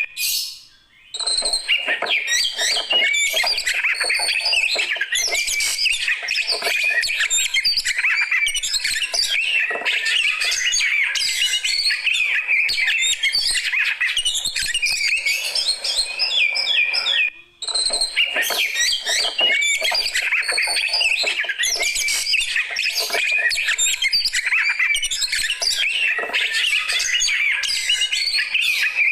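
Oriental magpie-robin (kacer) singing continuously, a rapid, varied run of whistles and chirps, breaking off briefly just after the start and again about 17 seconds in.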